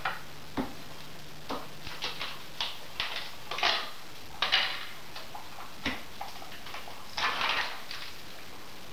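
Kitchen handling sounds: a dozen or so short clicks, knocks and brief plastic rustles as containers and utensils are picked up, opened and set down on a counter. The louder rustles come around the middle and near the end.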